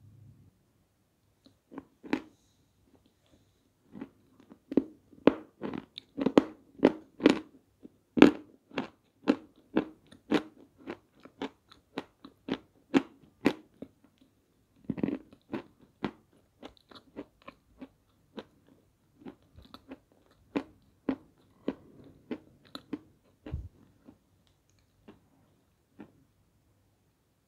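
Close-up crunching and chewing of dry pieces of edible clay (peschanka), a run of sharp crunches about two a second that thins out near the end.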